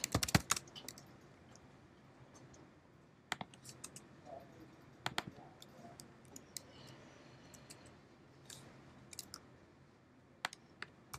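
Faint, scattered clicks of computer keys and a mouse: a quick run of key taps at the start, then single clicks or pairs every second or two.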